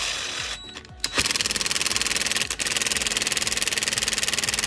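Parkside cordless impact driver tightening the ignition flywheel nut on a 160 cc YX pit-bike engine. A short burst stops just under a second in, then the tool hammers steadily and rapidly to seat the threadlocked nut.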